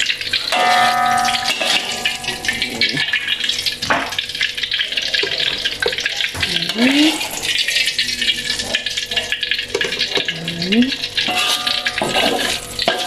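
Hot oil sizzling and crackling in a steel wok as fried chillies, shallots and garlic are scooped out with a metal ladle, with a sharp knock of the ladle on the wok about four seconds in.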